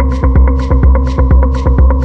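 Electronic music: a deep, pulsing bass under a fast, even run of clicks, with a hissing beat about twice a second.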